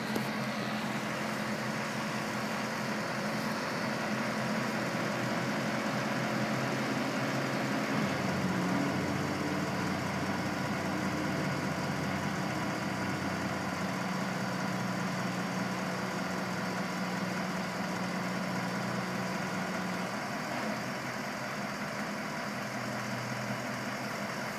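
Hook truck's engine running steadily while driving the hydraulics of a Palfinger hooklift, which holds the container tipped up with its boom extended as for a dump. The engine note takes on load about eight seconds in and eases again near the end.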